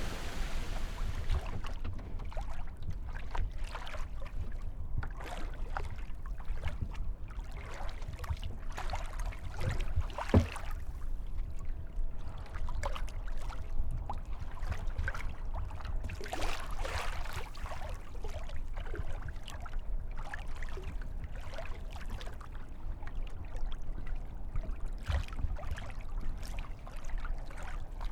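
Lake water lapping and splashing irregularly against a paddled kayak, over a constant low rumble.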